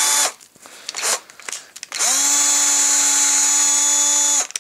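Cordless drill turning a 10-32 tap to cut threads in the holes of a drill's gearbox housing: a steady motor whine stops just after the start and, after a couple of light clicks, spins up again about two seconds in and runs for about two and a half seconds before stopping.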